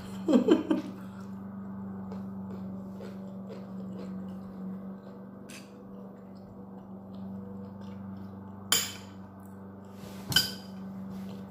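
Metal fork and knife clinking against a plate a few times while eating, with the two sharpest clinks about nine and ten seconds in, over a steady low hum.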